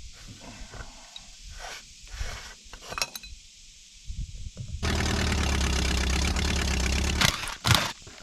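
A few scattered knocks, then a loud steady machine running for about two and a half seconds, starting and stopping abruptly, followed by a few sharp knocks.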